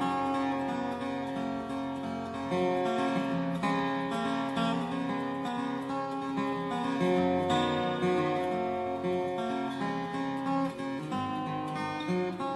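Instrumental music playing, with held notes that change every second or so and no singing.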